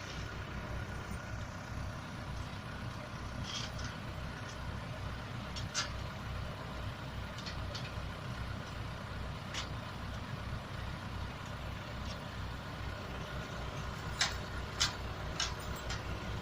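Backhoe's diesel engine running steadily at low revs, with a few sharp metallic clinks, three of them close together near the end.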